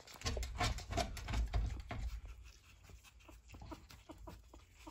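Pug puppies lapping milk from a plate: a run of quick, wet clicks, busier and louder over the first two seconds with a low rumble underneath, then fainter and more scattered.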